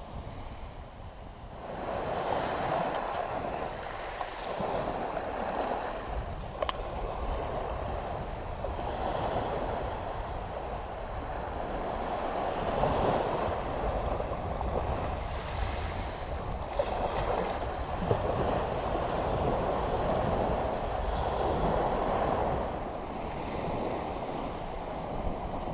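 Sea waves breaking and washing on the shore, swelling and ebbing every few seconds, with wind buffeting the microphone.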